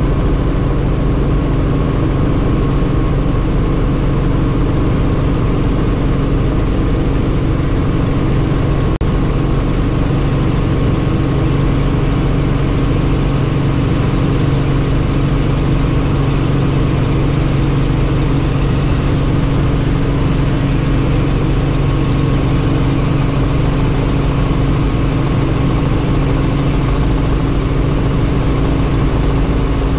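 Helicopter in flight: the engine and rotor make a steady, loud drone with a low hum that does not change.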